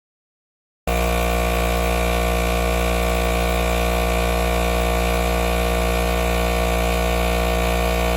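Air compressor running steadily, building up pressure in its tank. It starts abruptly about a second in.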